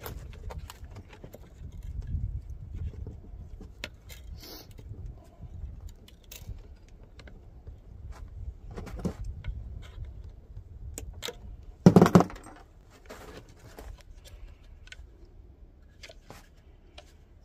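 Thin metal wire clicking and scraping as it is wrapped around a split log to bind it into a Swedish torch, with wind rumbling on the microphone; one louder knock about twelve seconds in.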